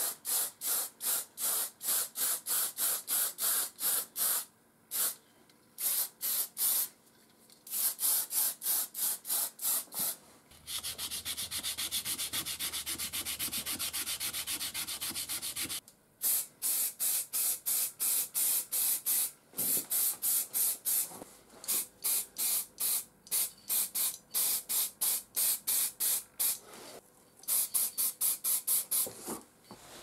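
Hand sanding of a vintage ignition coil's body: quick rhythmic strokes, several a second, in repeated runs. About ten seconds in, this gives way to some five seconds of steady aerosol spray-paint hiss, and then the short rhythmic strokes return.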